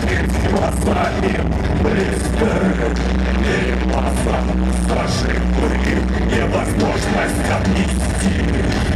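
Loud live electronic rock music from a band playing through a club PA, with a heavy steady bass and a regular drum beat.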